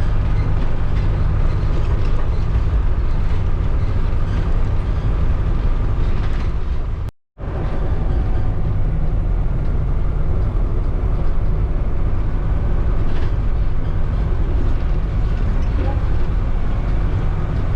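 Steady engine and road noise of a converted minibus motorhome under way, heard from inside the cab. The sound drops out completely for a fraction of a second about seven seconds in, then carries on the same.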